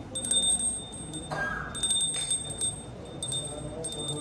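A small metal bell rung in repeated short bursts, each burst a bright, high, steady ring.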